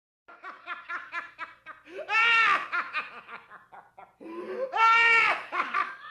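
High-pitched laughter from one voice: quick bursts of short laughs, broken twice by long, loud squealing whoops, about two seconds in and again near five seconds.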